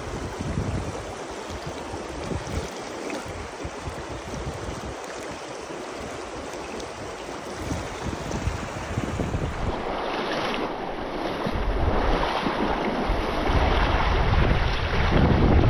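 Wind buffeting the microphone: a steady rushing noise that turns louder and gustier, with heavy low rumble, after a cut about ten seconds in.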